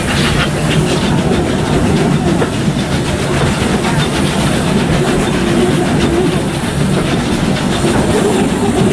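Steam-hauled train running along, its carriage wheels clattering on the rails, heard loud and steady from an open carriage window.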